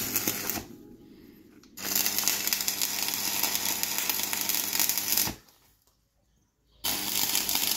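Electric arc welding on steel: a dense, steady crackling that breaks off twice, about a second in and again near the end, for a second or so each time.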